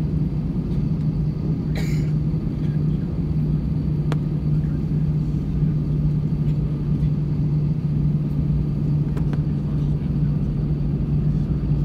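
Airbus A320 cabin noise while taxiing: the engines running at idle give a steady low hum and rumble, heard from a window seat over the wing. A brief sharp noise about two seconds in.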